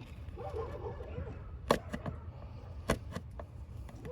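Small metal clicks from fitting a cotter pin through a hood latch cable pin by hand: two sharp clicks a little over a second apart, with lighter ticks, over a low rumble. A faint murmur in the first second.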